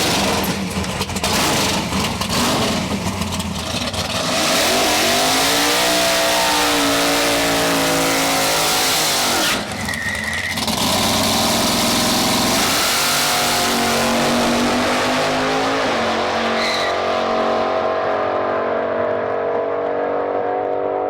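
Drag race car launching and accelerating hard, its engine climbing in pitch through the gears with clear breaks at the shifts, then fading as the car pulls away down the strip.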